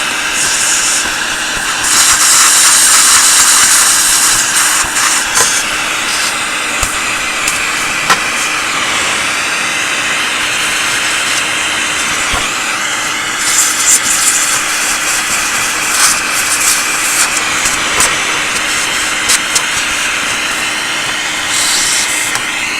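Vacuum cleaner running steadily, sucking dust out of a vintage tube radio's chassis, with a steady hum under a loud rushing hiss. The hiss gets louder about two seconds in, again around the middle, and near the end, and there are scattered small clicks and ticks.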